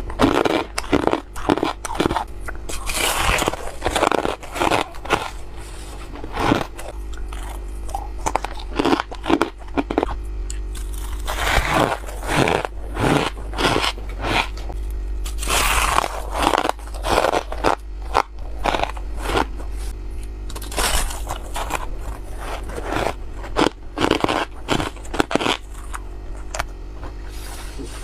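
A person biting and chewing squeaky ice close to the microphone: clusters of sharp crunches and scraping squeaks in repeated bouts with short pauses between bites.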